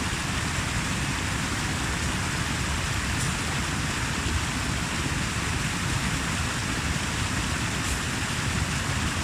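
Steady rushing of flowing water, an even, unbroken wash of noise.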